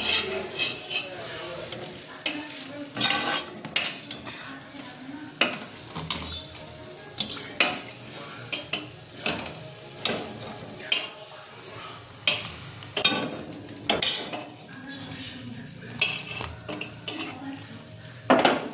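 Food sizzling as it fries in hot oil in a pan, with a metal spatula stirring and scraping against the pan in frequent, irregular clinks and knocks.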